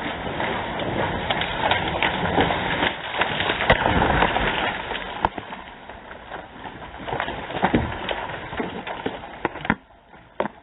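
A felled tree coming down, with dense crackling and snapping of twigs and branches. It is loudest about four seconds in and drops off sharply near the end to a few scattered snaps.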